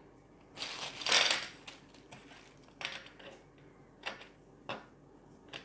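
Small plastic 18650 battery holders and a battery handled on a table: a scrape about a second in, then a few sharp light clicks of hard plastic and metal.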